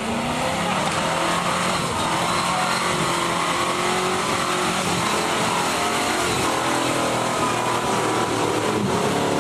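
Land Rover Defender's engine held at high revs while driving through deep mud ruts. The pitch climbs at the very start, then stays high with small rises and dips.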